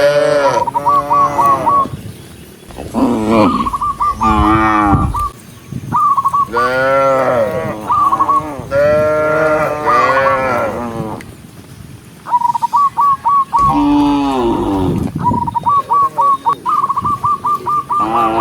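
Cattle mooing, one loud call after another, each call rising and then falling in pitch, with a short lull about eleven seconds in.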